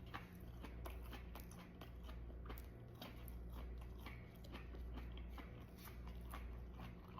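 Faint close-up chewing of a raw purple Gator Jigsaw chili pepper: irregular crunchy clicks of biting and chewing, over a steady low hum.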